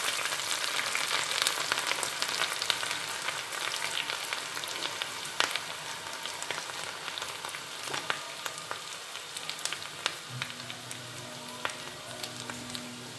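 Sliced shallots frying in hot coconut oil in a small iron pan: a steady sizzle with scattered crackles, gradually quietening.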